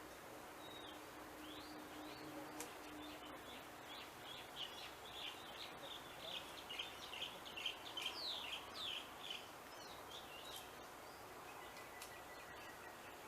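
A bird calling outdoors: a rapid run of short, high chirps, about three to four a second, starting about four seconds in and stopping near the ten-second mark, over faint steady background noise.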